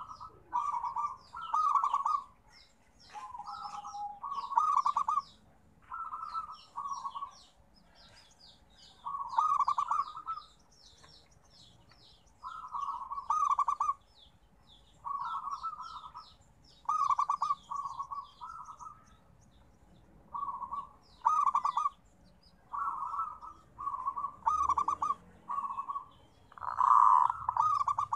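Zebra dove (perkutut) cooing: short phrases of rapid pulsed coo notes, one every second or two, the loudest near the end. Smaller birds chirp high-pitched in the background.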